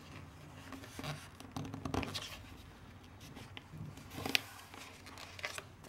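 Paper being folded and creased by hand against a tabletop: soft rustling and rubbing, with a couple of sharper crackles about two seconds in and again just past four seconds.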